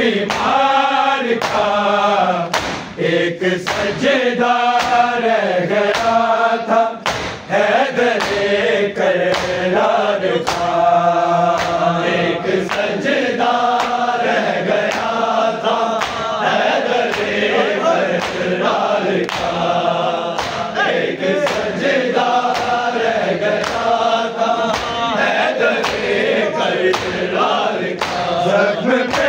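Male voices chanting a noha in chorus. A sharp, regular beat of matam (chest-beating) runs under them, a little faster than once a second.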